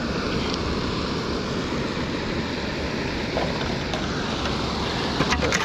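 Steady rush of water spilling over a low concrete dam, with a few short sharp clicks near the end.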